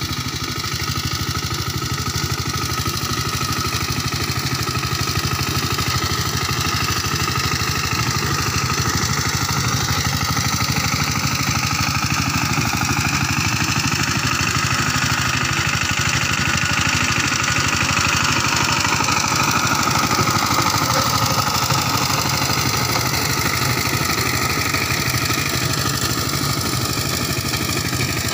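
Two-wheel power tiller's single-cylinder diesel engine running steadily with a fast, even chugging. It grows a little louder toward the middle as the tiller passes close, then eases off slightly as it moves away.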